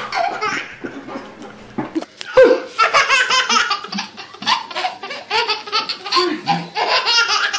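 A baby laughing hard in quick, repeated belly-laugh bursts, louder from about two seconds in.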